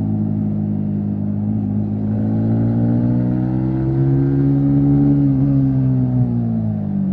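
Yamaha MT-15's 155 cc single-cylinder engine pulling on the highway. The revs climb a couple of seconds in, hold briefly, then ease off near the end as the throttle is rolled back.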